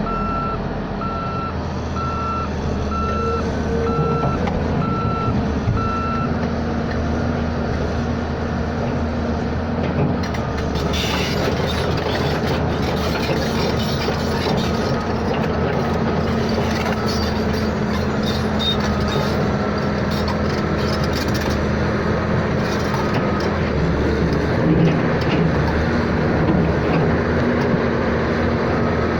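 Evenly spaced electronic beeps, typical of a vehicle's warning beeper, over a running engine. The beeping stops about six seconds in; the engine keeps running, with more rough noise added from about ten seconds on.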